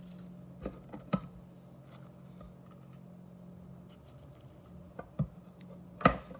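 A few light clicks and taps from a small die-cast toy car being handled, the loudest near the end, over a steady low electrical hum.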